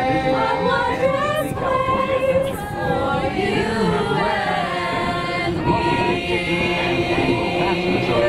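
A choir of mixed voices singing in harmony without accompaniment, holding long notes that shift pitch every second or so.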